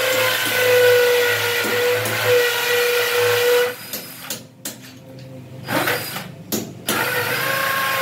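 Cordless power drill running under load as it bores into a concrete wall, in two runs with a pause of about three seconds between them. In the pause come several sharp hammer knocks on a chisel.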